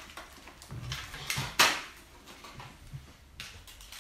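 Small plastic toy pieces and cases being handled, with light clicks and rattles and one sharp plastic click about a second and a half in.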